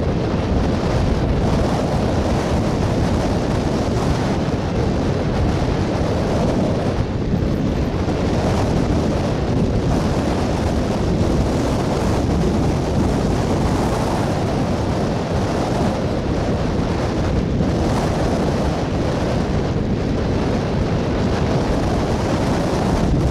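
Wind noise on the microphone over the steady rumble of railroad tank cars rolling slowly past on the rails.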